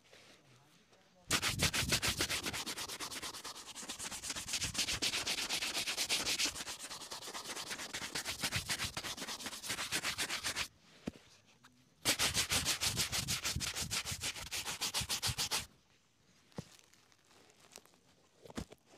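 Bristle shoe brush scrubbing quickly back and forth over a black leather boot, several strokes a second. It is one long run of brushing, a short pause, then a second run of a few seconds, followed by a few light taps.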